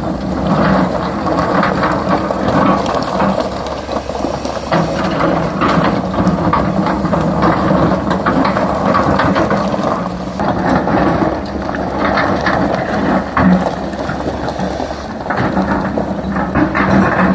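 CAT 320 hydraulic excavator working: its diesel engine runs steadily, with a constant low hum. Many irregular knocks and crackles of rock and bucket sit on top of it.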